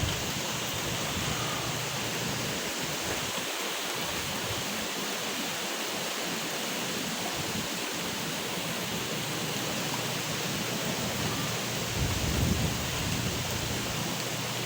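Heavy hurricane rain falling in a steady hiss, with a low rumble swelling up about twelve seconds in.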